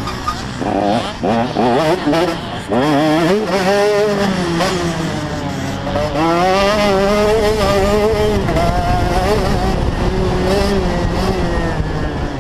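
Motocross bike engine heard from on board while riding, revving up and down in quick rises over the first few seconds, then held at high revs with a wavering pitch.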